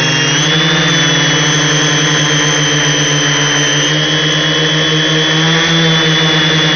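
Multirotor's electric motors and propellers running in flight: a steady whine that dips briefly in pitch about a second in and again near the end.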